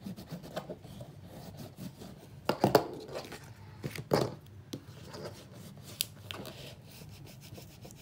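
A bone folder rubbing back and forth over cardstock, pressing a taped paper layer flat onto a kraft card pocket. Louder knocks and rustles of the card being handled come about two and a half seconds in and again about four seconds in.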